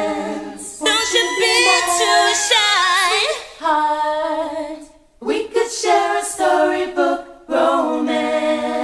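Unaccompanied voices singing a cappella in short phrases with quick, wavering runs and vibrato, with no instruments. There are brief breaks a few seconds in and about halfway through.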